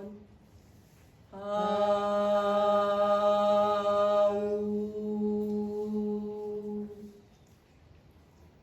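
A single voice chanting the Qi Gong healing sound "AU" on one steady pitch for about five and a half seconds. The open "ah" narrows to "oo" about halfway through.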